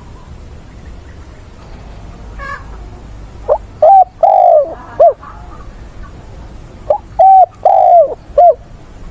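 Spotted dove cooing: two phrases of about four notes each, the first starting about three and a half seconds in, each with one longer, drawn-out note near its end.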